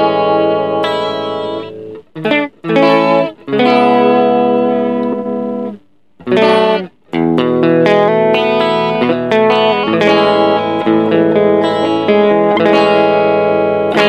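Electric guitar played through the TC Electronic Plethora X5's Shaker Vibrato effect: strummed chords and phrases with short breaks about two and six seconds in.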